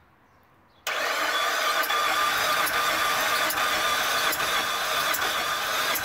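Starter cranking the 2008 Saab 9-3 Aero's 2.8-litre turbo V6 with the starter relay jumped from the battery. It starts suddenly about a second in, runs steadily for about five seconds without the engine catching, and stops near the end.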